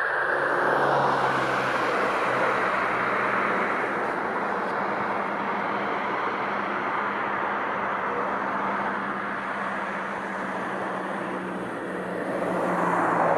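Distant jet noise from a Boeing KC-135R Stratotanker's four CFM F108 turbofans high overhead: a steady rushing drone that swells a little near the end.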